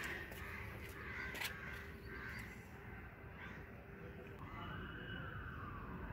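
Birds calling in short repeated calls about once a second, with a long tone in the second half that rises and then slowly falls.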